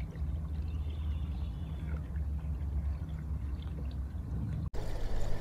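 Water lapping and trickling around a small paddle kayak, with a steady low rumble underneath and faint scattered ticks. The sound breaks off abruptly near the end and picks up again much the same.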